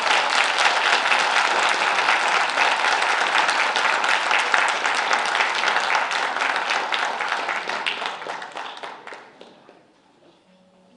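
Audience applauding, a dense steady clapping that dies away about nine seconds in.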